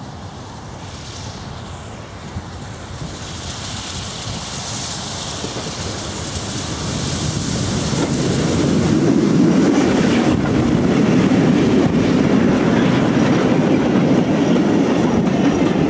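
A train approaching and running past, its noise growing steadily louder for the first half and then holding as a steady rolling rumble of wheels on the rails.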